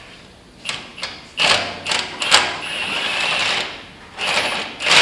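Hand tools working on the steel pin hardware of a loader bucket's roll-out cylinder: a run of sharp metal clicks and scrapes, then about a second of fast, even clicking near the middle, and two more loud metal knocks near the end.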